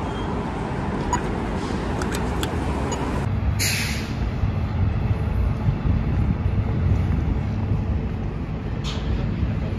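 Road traffic rumbling steadily, with a short loud hiss about three and a half seconds in and a fainter one near the end.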